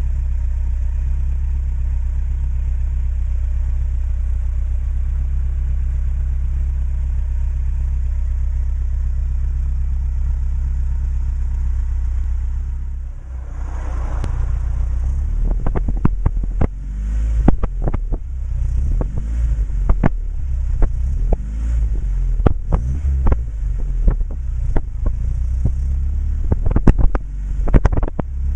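Lada 2107's four-cylinder engine idling through a 50 mm sport exhaust with a stainless tip: a steady, loud, low rumble. About 13 seconds in, the sound turns uneven, and many sharp cracks come from the exhaust.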